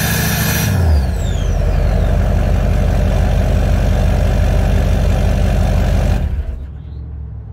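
LLY Duramax 6.6-litre V8 turbo-diesel idling through a 4-inch MBRP straight-pipe exhaust. Under a second in, a high hiss cuts out and a high whistle falls away as the note settles, and the sound gets quieter after about six seconds.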